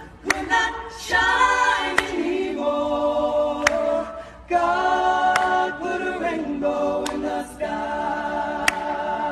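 Unaccompanied choir singing slow, held chords, with a sharp tick on the beat about every second and a half.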